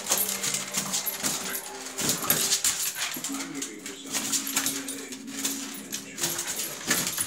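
Miniature schnauzer playing with an inflated rubber balloon on a tiled floor: irregular scuffs and knocks as the balloon is nosed and pushed along and the dog's paws move on the tiles, with the dog whining.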